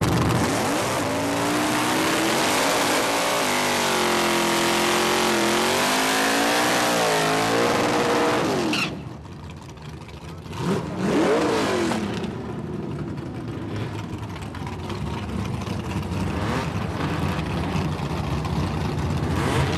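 V8 Ford Capri drag car doing a burnout: the engine held at high revs, its pitch wavering, over the hiss of the spinning rear tyres, cut off suddenly about nine seconds in. A couple of seconds later one rev rises and falls, then the V8 settles to a steady idle that slowly grows louder as the car comes closer.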